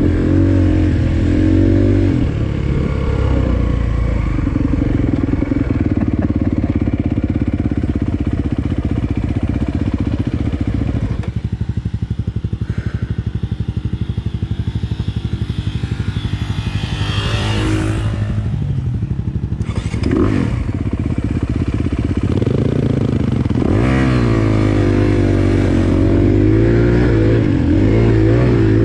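Dirt bike engine running on a trail ride, its pitch rising and falling as the throttle opens and closes, with a short burst of rushing noise about two-thirds of the way through.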